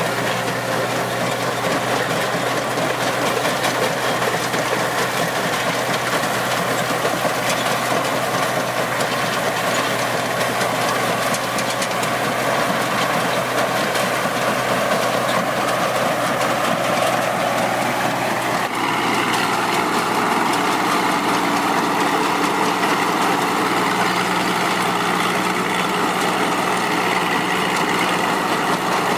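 Tracked combine harvester running steadily under load. Past the middle a note rises, and then the machine's pitch shifts and stays higher.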